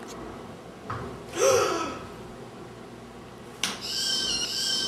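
A person's loud, sharp gasp of shock about one and a half seconds in. Near the end music cuts in with a sudden hit, then steady high tones.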